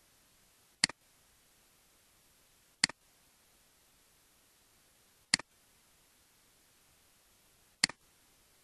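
Four computer mouse button clicks, a couple of seconds apart, each a sharp tick followed at once by a softer second tick, over a faint steady hiss.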